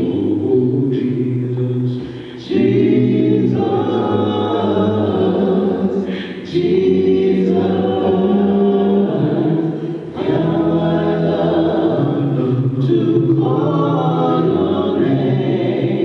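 Congregation singing a hymn a cappella, voices only with no instruments, in long held phrases with short breaks for breath about two, six and ten seconds in.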